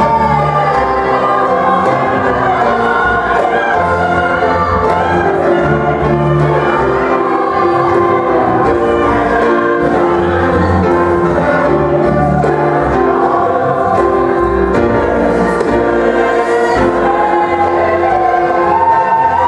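Mixed choir singing a gospel-style song in held, moving harmony, accompanied by grand piano, upright bass and a hand drum.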